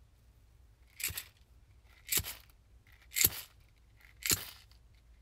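Marching footsteps: four slow, even crunching steps, about one a second.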